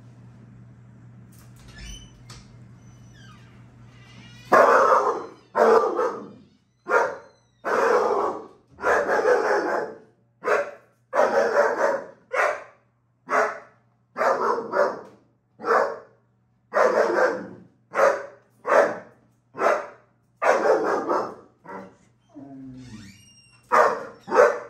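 Young German Shepherd barking over and over, about twenty loud barks in quick succession starting a few seconds in. This is the reactive barking of a dog faced with an unfamiliar dog.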